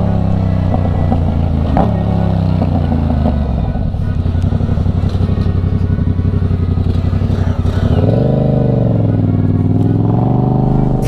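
Motorcycle engine running while being ridden. Its pitch drops about two seconds in, holds steady, then rises and falls again near the end as the throttle is opened and closed.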